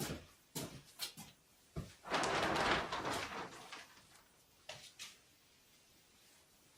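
Delivered packaging and parts being handled: a few sharp knocks, a rustling scrape lasting about a second and a half from about two seconds in, then two more knocks near five seconds.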